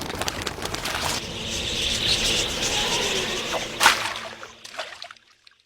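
A huge flock of wild budgerigars in flight: a dense rush of many wings, with a sharp swish about four seconds in, then fading away.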